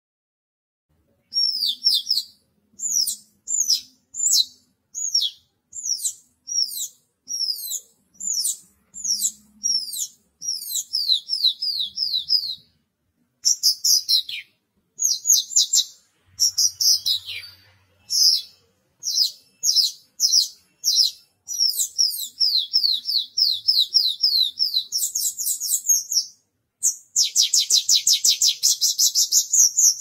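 Caged Javan bush lark (branjangan) singing: sharp, high downslurred whistles repeated about two a second, starting about a second in, turning into quicker runs of notes midway and a dense, fast trill near the end.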